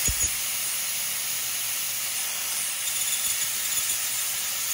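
Steady hiss of flood cutting oil spraying over a CNC lathe as a coated twist drill rough-drills the bore of a stainless steel rifle barrel. Two soft low thumps come right at the start.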